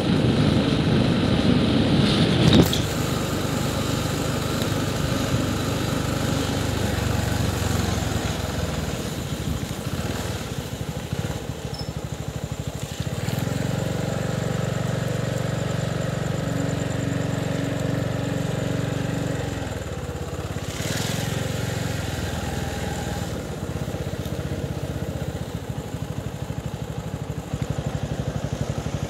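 Small vehicle engine running steadily while moving along a road, its pitch shifting a few times as the speed changes. A single sharp knock about two and a half seconds in.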